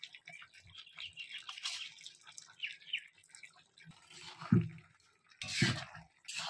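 Spiced turkey pieces sizzling and crackling softly in a pan. About four and a half seconds in, a spoon stirs through the meat, with two louder scraping strokes against the pan.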